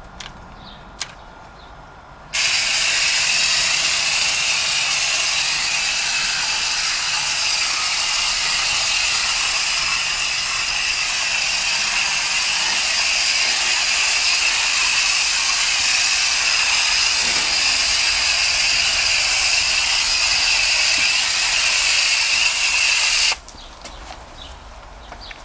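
A hand-held power tool's motor running steadily with a high whine and a rushing hiss. It switches on a couple of seconds in and cuts off abruptly near the end.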